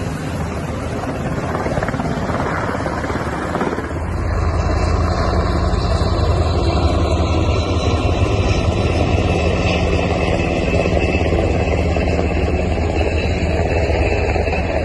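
UH-60 Black Hawk helicopter in flight, its rotor and twin turboshaft engines running steadily. The sound grows louder and fuller about four seconds in.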